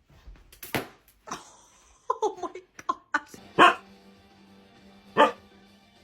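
Husky barking: several loud single barks spaced a second or more apart, with a quick run of shorter yelps about two seconds in. Music with steady held tones comes in about three seconds in, under the barks.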